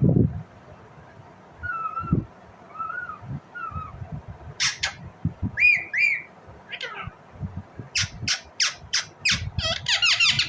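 Indian ringneck parakeet squawking: a pair of sharp screeches, then a few ringing calls, a fast run of about six shrill calls and a harsh burst near the end. A dull thump at the start.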